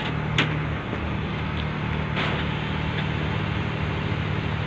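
Car carrier truck's engine idling with a steady low hum, with a couple of short hissing noises about half a second and two seconds in.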